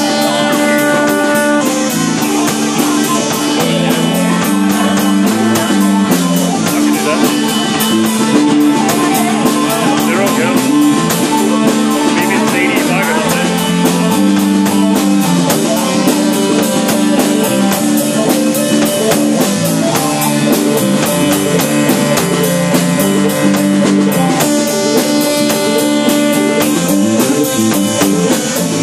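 Live band playing rock music: electric guitars, keyboard and drum kit with a steady, evenly spaced beat. The recording, made on a phone, is thin, with almost no bass.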